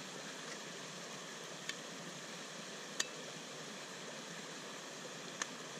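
Steady rush of a creek running over rocks, with three short sharp clicks as a folding solid-fuel pocket stove is handled and folded shut.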